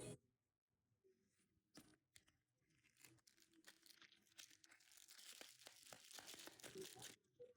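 Faint tearing and crinkling of a trading-card pack wrapper being opened, with scattered small clicks at first; the rustling builds over the second half and stops just before the end.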